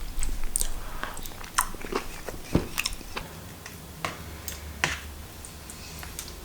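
Close-miked chewing and wet mouth smacks from eating soft food, with scattered short clicks.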